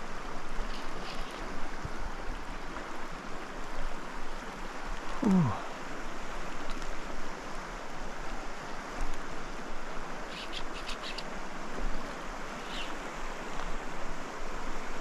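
Fast-flowing creek water rushing steadily, with wind on the microphone. About five seconds in there is a brief falling whine, and a few faint high ticks come around ten seconds.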